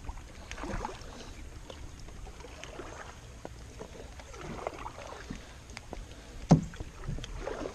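Kayak paddle strokes: slow splashing swishes of the blades through the water, with small clicks and drips, and one sharp knock about six and a half seconds in.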